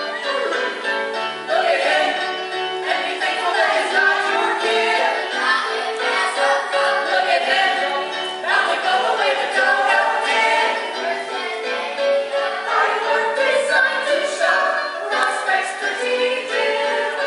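Stage musical number: several voices singing together over instrumental accompaniment.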